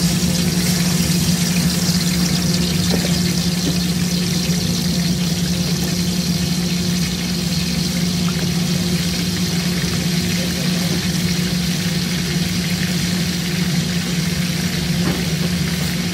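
Garlic and ginger paste sizzling steadily in hot oil in a large aluminium pot, over a steady low hum.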